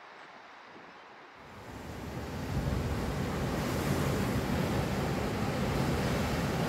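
Sea waves washing on the shore, with wind buffeting the microphone. The rushing sound comes in about a second and a half in, swells over the next second, then holds steady.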